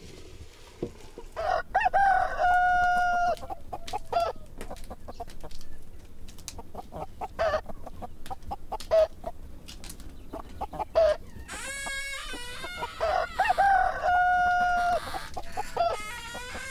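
A rooster crowing twice, each crow a long held call, about ten seconds apart, with chickens clucking in short calls between.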